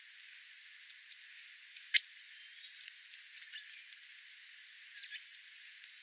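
Scrub-jay foraging on gravel strewn with birdseed: scattered light clicks and ticks of its bill and feet on seeds and stones, the sharpest about a third of the way in, with a few faint high chirps. The audio is cut below about 1.8 kHz, so it sounds thin and hissy.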